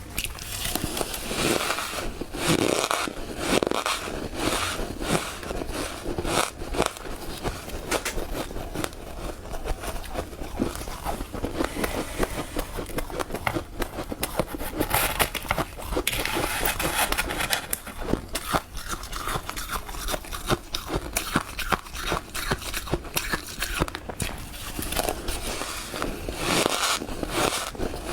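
Freezer frost crunched and scraped close to the microphone, a dense, continuous run of small crackles and crunches.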